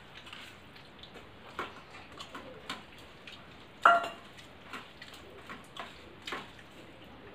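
Scattered small clinks and scrapes of fingers and utensils on stainless steel plates and bowls as rice and dal are eaten by hand, with one louder sharp clink that rings briefly about four seconds in.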